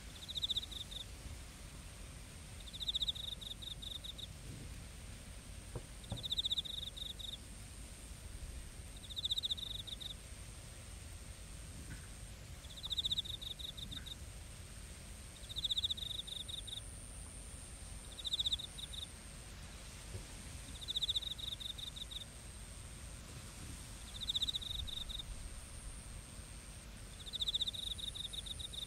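Crickets chirping in a field: short pulsed trills repeating about every three seconds, over a continuous thin high-pitched insect note and a low background rumble.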